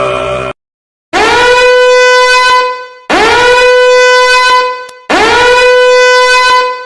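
A horn sound effect blown three times in a row, each blast sliding up quickly into a bright, steady note and cutting off before the next. The tail of a droning chant runs for the first half second.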